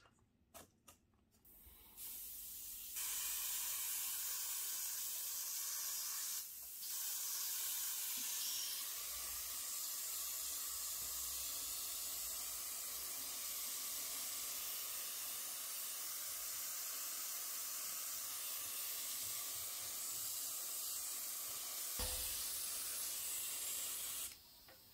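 Airbrush spraying paint: a steady hiss of compressed air that starts about two seconds in, breaks off briefly around six and a half seconds, and stops just before the end.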